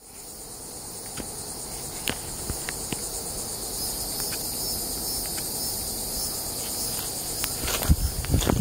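A steady, high-pitched chorus of insects, fading in at the start, with a few light clicks. Near the end, footsteps on the leafy trail floor come in as low thumps.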